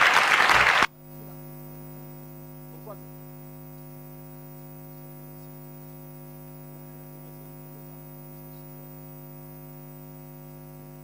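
Loud crowd applause cuts off abruptly about a second in, leaving a steady electrical mains hum with a buzzy stack of tones.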